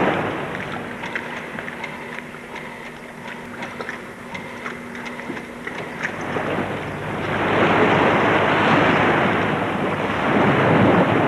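Water waves rushing and breaking in a laboratory wave flume, loud from about seven seconds in. Before that comes a quieter stretch with scattered clicks and a steady low hum.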